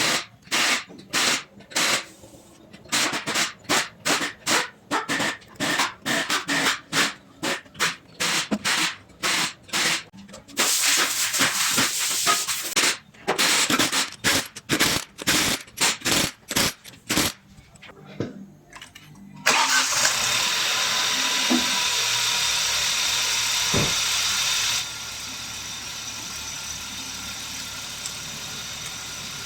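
Rapid, irregular short bursts of noise, then about twenty seconds in the Kia Stonic's 1.0 T-GDI three-cylinder engine comes in suddenly and runs steadily, dropping to a quieter idle about five seconds later.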